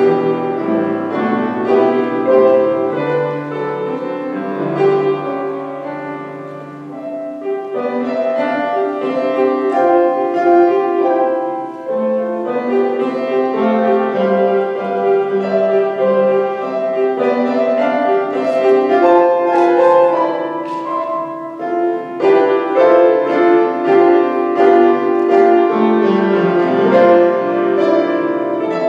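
Solo grand piano playing a slow instrumental piece in sustained chords and melody, with a softer stretch about six seconds in and short breaks between phrases.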